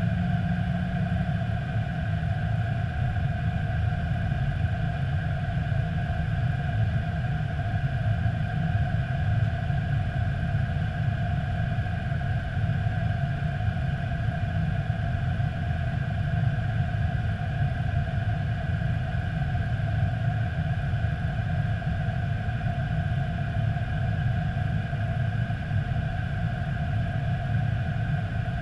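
Airbus A320 flight-deck noise on approach: a steady low rumble of airflow and engines, with two steady higher hums over it.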